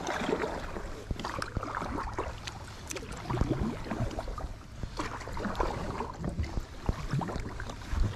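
Kayak paddle strokes: the blades dipping and splashing in the lake water, several times over, with wind rumbling on the microphone underneath.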